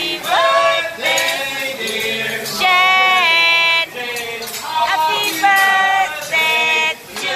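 A table of adults and children singing a birthday song together, with one long held note about two and a half seconds in.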